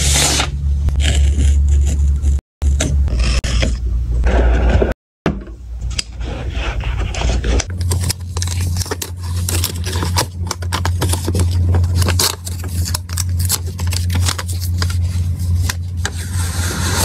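Close-up unboxing sounds of a Google Pixel Fold's paper-and-cardboard packaging: a paper sleeve and box scraping and rubbing under the hands, and paper wrap crinkling as it is peeled back, in many small crackles over a steady low hum. The sound breaks off briefly twice in the first five seconds.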